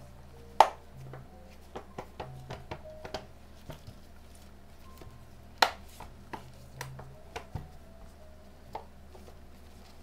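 Plastic case halves of a G-scan3 handheld scan tool being pressed and snapped back together by hand: a scatter of sharp clicks and knocks, the loudest about half a second in and another a little before six seconds.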